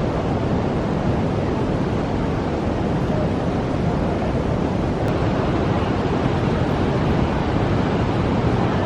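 Steady rush of water from the Athirapally waterfall, an even, unbroken noise.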